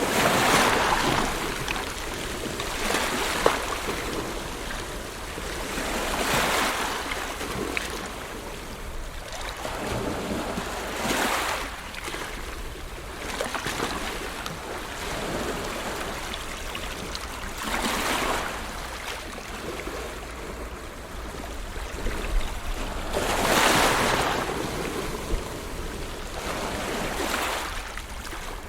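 Ocean waves breaking and washing in: a steady rush of surf that swells into louder surges every few seconds.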